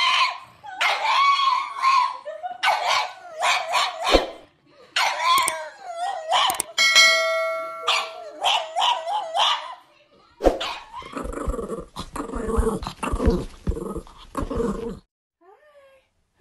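Pug howling in a string of drawn-out, wavering calls, one of them held steady on a single pitch about seven seconds in. This is followed by a rougher, noisier stretch with knocks lasting about four seconds, which stops about a second before the end.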